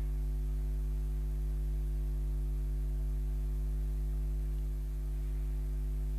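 Steady low electrical hum with a buzzy edge, holding unchanged throughout with no speech over it.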